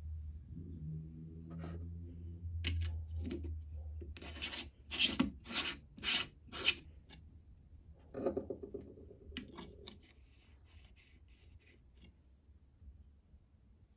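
Metal coffee distributor turned on a filled espresso portafilter basket: about five sharp scraping rubs roughly half a second apart, then lighter scraping and a few clicks.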